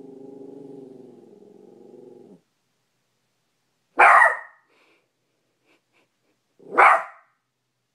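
Small maltipoo dog growling low and steadily at its own reflection in a mirror, the growl stopping about two seconds in, followed by two short, sharp barks a few seconds apart.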